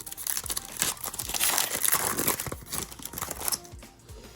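Plastic foil wrapper of a trading-card pack crinkling and tearing as it is opened by hand, a dense crackle lasting about three seconds.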